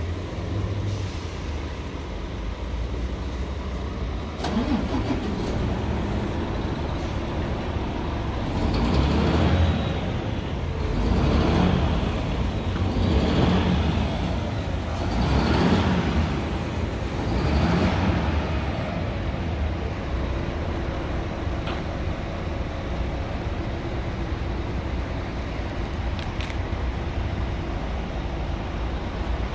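Heavy diesel truck running steadily, a low hum, with five swells of louder engine-like noise about two seconds apart midway.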